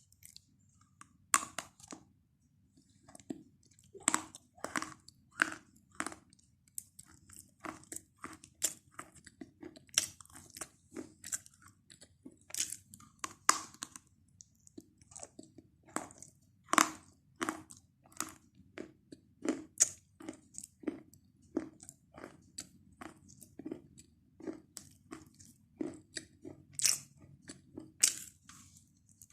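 A person chewing chalk close to the microphone: an irregular run of sharp, crisp crunches, about one or two a second, over soft chewing.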